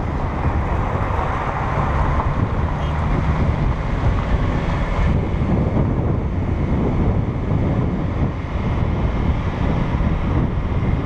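Steady, loud wind buffeting the microphone of a camera mounted outside a moving vehicle, over the vehicle's road noise.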